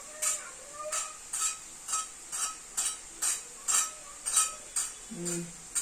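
A metal spoon stirring shredded potatoes in a frying pan, striking the pan about twice a second, over a faint steady sizzle of hot oil.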